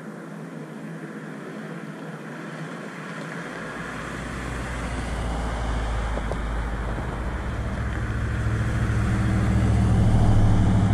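A vehicle engine growing steadily louder, at its loudest near the end, with a low rumble coming in about a third of the way through.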